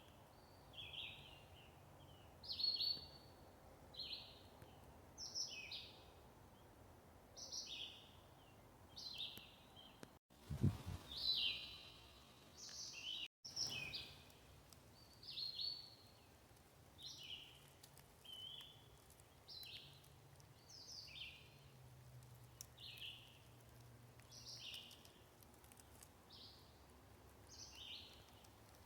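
A songbird calling over and over, a short high two-part phrase about every second and a half, with a brief low thump about ten seconds in.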